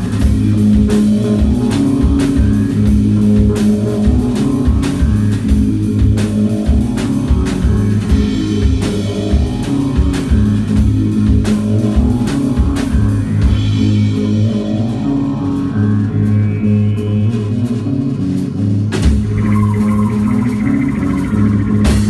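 Live heavy rock from two electric bass guitars and a drum kit: sustained low bass notes over a steady kick drum and cymbals. The kick drops out for a few seconds midway, with repeated rising sweeps, then comes back near the end.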